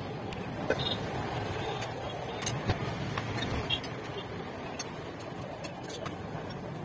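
Stovetop cooking: a spatula clicks and clinks a few times against a pot and an iron tawa as a paratha is cooked and turned. Under it runs a steady rushing noise.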